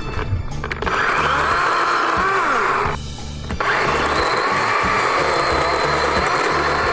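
DeWalt DCCS620B 20V brushless battery chainsaw running at speed with a steady high whine; it cuts out briefly about three seconds in, then spins up and runs again.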